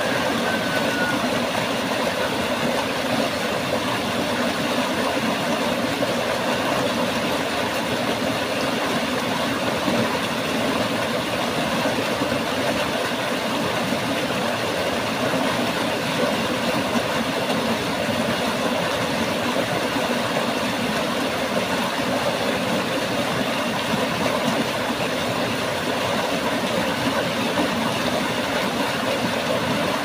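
Mountain stream rushing and splashing over boulders in a small cascade: a steady, even rush of water.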